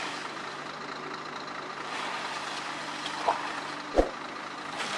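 Vehicle engine running steadily under a steady hiss, with a short knock about four seconds in.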